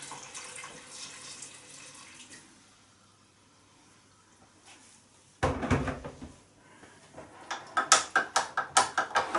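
Hot water from an electric kettle pouring into the pressure cooker's metal inner pot, tailing off after about two seconds. A single heavy thump follows a few seconds later, then a spoon clinks rapidly against a cup, several strikes a second, near the end.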